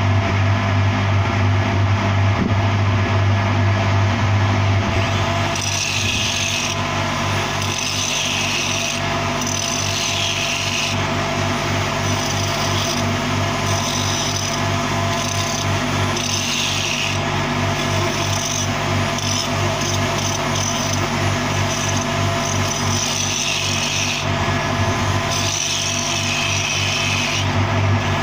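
Angle grinder running steadily on a steel pipe weld joint before the cap pass is welded. From about five seconds in, a high rasping grind comes and goes in passes of about a second as the disc is worked along the steel.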